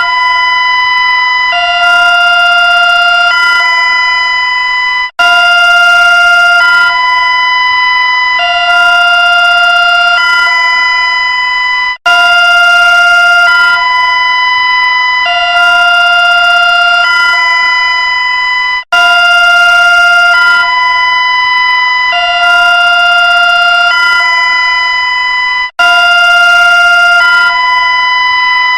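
Electronic emergency-alert alarm tone: a loud chord of steady pitches that steps to a different chord every second or two, the sequence repeating about every seven seconds with a very short break between repeats.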